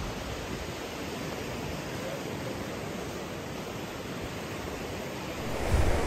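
Steady rush of ocean surf, an even hiss with no distinct waves standing out. A brief low rumble near the end.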